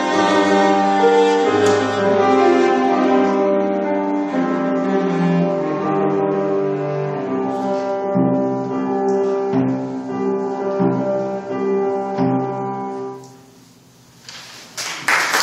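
Cello playing a classical piece with piano accompaniment, ending on a last held note about 13 seconds in. After a moment of quiet, the audience starts applauding near the end.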